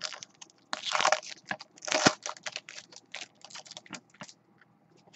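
Foil wrapper of a Panini Prime football card pack crinkling and crackling as it is pulled open and the cards are taken out, loudest about one and two seconds in and dying away after about four seconds.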